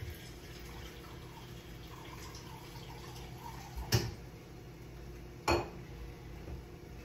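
Two sharp clanks of kitchenware, about a second and a half apart, over a steady low hum in the kitchen.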